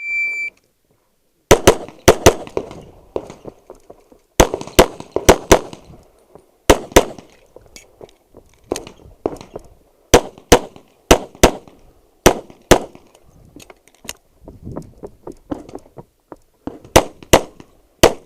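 Shot-timer start beep, then a handgun fired rapidly through a competition course of fire: quick pairs and strings of three or four shots separated by short pauses.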